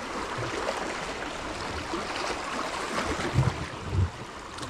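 Calm sea water lapping and trickling against shore rocks as a steady wash, with two dull low thumps about three and a half and four seconds in.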